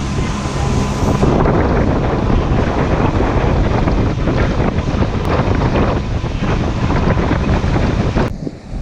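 Heavy wind buffeting the camera microphone, mixed with water rushing and splashing past the hull of a fast-moving inflatable boat. The rush drops out briefly near the end.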